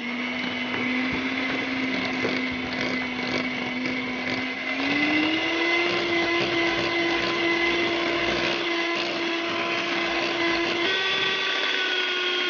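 Electric hand mixer running, its beaters whisking shortening and sweetened condensed milk in a glass bowl. The motor's steady whine rises in pitch about halfway through and then holds.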